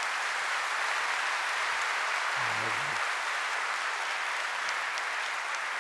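Audience applauding steadily in a conference hall, with one brief low pitched sound about two and a half seconds in.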